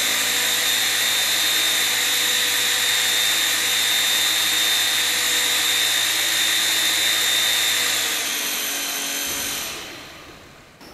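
Small DC motor spinning fast with a steady, high-pitched whine, fed through a single-wire resonant power link tuned to its resonance peak. It winds down over the last couple of seconds and dies away near the end.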